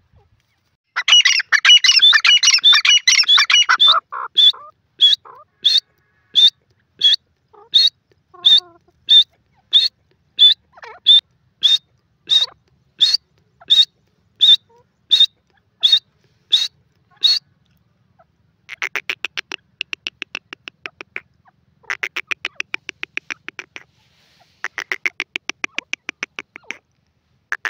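Grey francolin calling. About a second in comes a loud burst of rapid harsh notes, then a long, even series of short sharp notes at about one and a half a second. After a brief pause come three bouts of fast rattling chatter.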